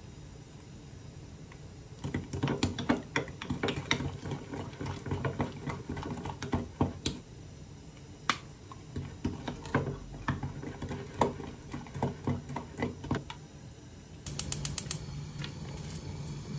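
A metal spoon and a wooden spatula stirring thick chili paste sauce in a glass cup, with many irregular clinks and taps against the glass. Near the end comes a quick run of clicks, then a steady low rushing sound.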